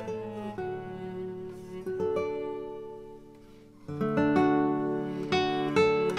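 Background music: a melody of plucked notes and chords. It thins out and grows quieter a little past halfway, then picks back up.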